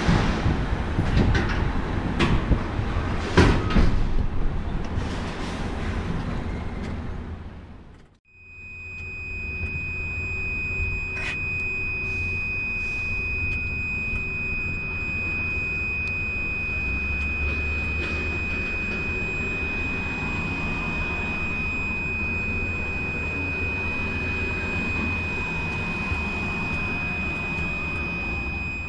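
Cab of a dead-engined truck as its tractor unit is towed out: low rumble and uneven rattling and knocking. After a sudden break about eight seconds in, a steady high-pitched tone sounds without a pause over the rumble.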